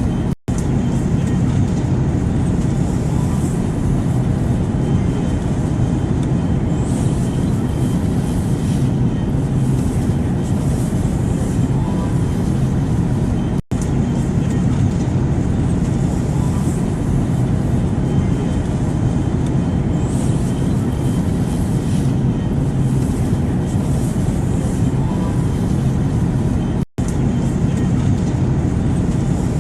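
Steady airplane noise as white noise: a low rumble with a hiss above it, cutting out for an instant three times, about every 13 seconds.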